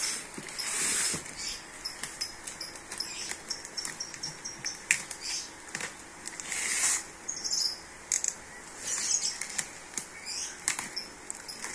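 Plastic parcel wrapping crinkling and rustling as it is cut open with a small utility knife and pulled at by hand, with many small clicks and scratches, in irregular bursts.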